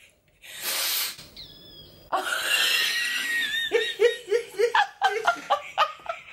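A woman laughing hard. First a sharp breath in, then a high squeal held for over a second, then a run of rapid laughing bursts, about three a second.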